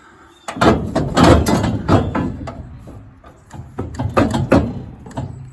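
A run of metal clanks, knocks and scrapes from hands-on work stripping down a V8 engine, with the busiest clatter about a second in and again around four seconds.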